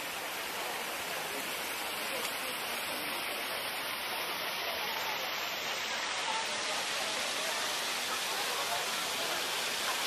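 Steady rushing of water falling over a small stream cascade: an even hiss with no breaks.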